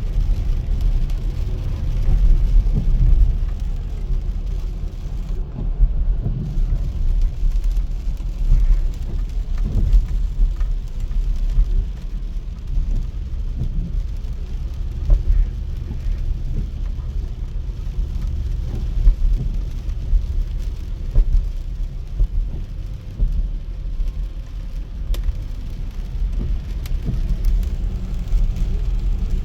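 Car driving on a wet road in rain: a steady low road rumble, with rain on the car and a few light ticks.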